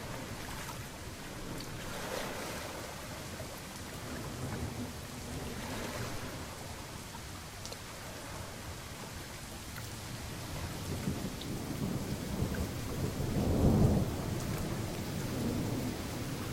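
Steady rain with low rumbles of thunder. The loudest rumble swells and fades about three-quarters of the way through.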